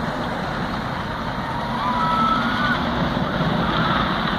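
Steady rumble of distant traffic, with a brief high wavering call about two seconds in.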